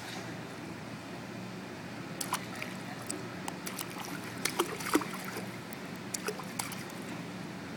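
Small splashes and drips of pool water as a toddler's hand dabbles and slaps at the surface, with a few sharp little splashes around the middle, over a steady low hum.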